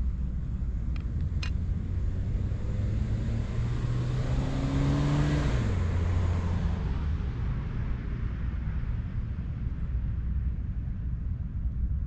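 A motor vehicle passing by: its engine and road noise swell to a peak about five seconds in and then fade, the engine note dropping in pitch as it goes past. A steady low rumble lies underneath, with a couple of sharp clicks about a second in.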